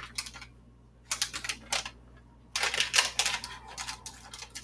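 A few light clicks, then, from about two and a half seconds in, a rapid crackling rustle of a clear plastic ingredient packet being handled over a blender jar.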